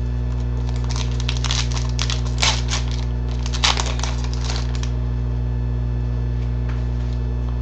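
Trading cards being handled and flipped through: a quick run of soft rustles and clicks for a few seconds, stopping about two-thirds of the way in. A steady low electrical hum sits under it throughout.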